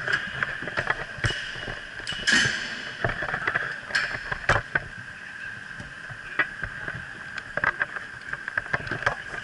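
Inline hockey play heard from the bench: scattered sharp clacks and knocks of sticks, puck, skates and boards, the loudest about two and four and a half seconds in. A steady high whine runs underneath.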